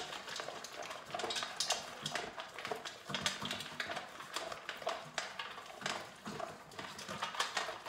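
Two Great Danes eating dry kibble from stainless steel bowls: quick, irregular crunching with clinks against the metal bowls.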